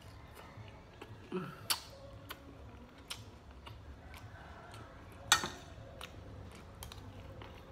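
Close-up mukbang eating sounds: a person chewing fried, breaded food, with scattered small wet clicks and smacks of the mouth. One sharper, louder click comes about five seconds in, and a short low hum comes near one and a half seconds in.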